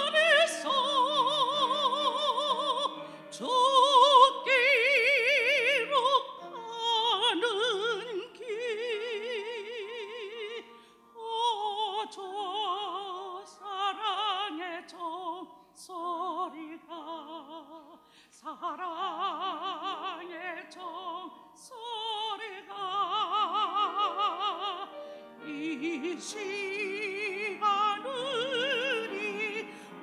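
A woman singing solo in a classical, operatic style with wide vibrato, in long sung phrases with short breaks between them.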